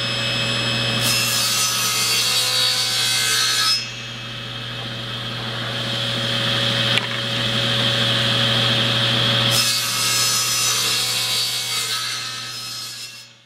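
Rockwell Model 9 9-inch contractor's table saw, driven by its 1-horsepower Rockwell motor, running with a steady hum as the blade rips a board. The cutting noise is heaviest twice, from about one to four seconds in and again from about ten seconds in, with a single click near seven seconds.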